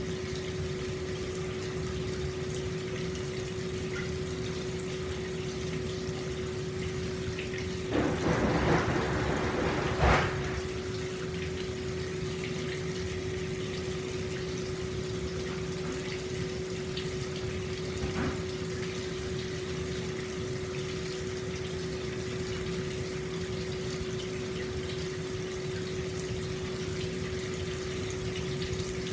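Hot-spring water flowing steadily into an open-air bath, over a constant low hum. About eight seconds in there is a louder, splashier surge of about two seconds that ends with a sharp knock.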